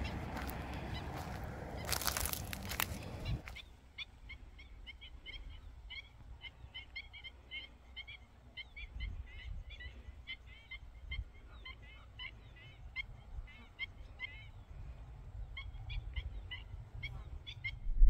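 Rustling and footsteps through dry vegetation for the first few seconds. After that, black-winged stilts call over a low wind rumble: a long run of short, sharp yelping notes, many in quick succession.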